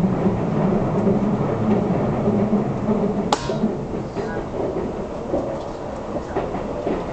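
Running noise of a Keisei Skyliner heard from inside the passenger car: a steady rumble with a low hum that fades after about three seconds, and one sharp click a little after that.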